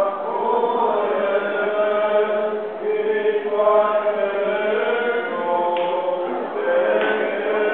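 Orthodox church chanting: sustained, melodic liturgical singing of the hymns sung as the couple is led around the table in the Orthodox wedding service.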